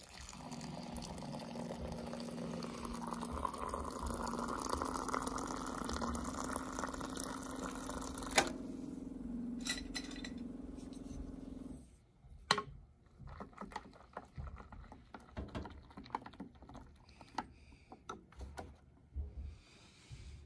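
Hot water running from an Avalon water dispenser's hot tap into a small stainless steel pot of coffee grounds, a steady pouring stream that stops abruptly about twelve seconds in. After that, light scattered taps and clicks of a wooden chopstick stirring the coffee in the metal pot.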